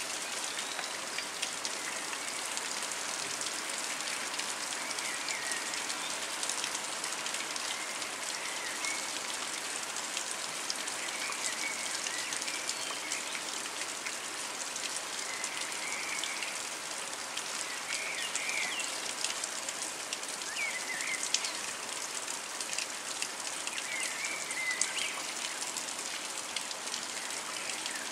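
Steady rain falling on rooftops and trees in a thunderstorm, an even hiss with water dripping and running off the roofs. Short, high chirps come every few seconds.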